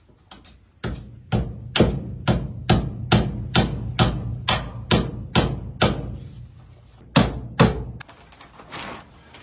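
Hammer blows in a steady run, about two a second, some sixteen strikes, that stop about a second before the end, followed by a few lighter knocks.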